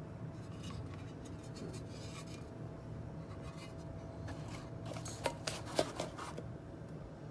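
Small hardware parts being handled: light rubbing and scraping, with a few sharp clicks about five to six seconds in, over a low steady hum.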